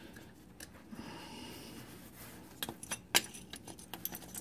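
Small metal clinks and clicks of a drill bit being swapped for a bigger one, faint at first, then a few sharp clicks in the second half, the loudest about three seconds in.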